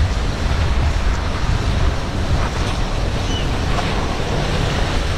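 Wind buffeting the microphone over breaking surf, with the low rumble of a SeaVee center console's quad Mercury 350 outboards running past at speed.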